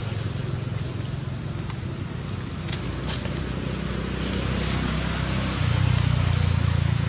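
A low, steady engine hum that grows louder about five and a half seconds in.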